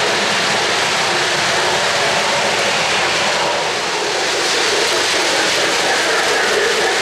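O-gauge model freight train running past on three-rail track: a steady whirring of metal wheels on the rails and the locomotive's motor, dipping slightly for a moment near the middle.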